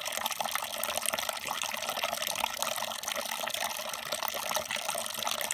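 A thin stream of IPA wort pouring into the foamy wort in a plastic fermenting bucket, trickling and splashing steadily as the fermenter fills.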